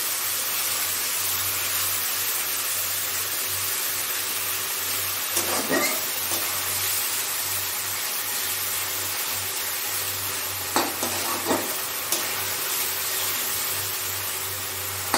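Onion, tomato and ginger-garlic masala paste sizzling in oil in a kadai, stirred with a metal spatula that scrapes against the pan a few times, once about a third of the way in and again about two-thirds in. This is the masala being fried down (kosha) before the meat goes in.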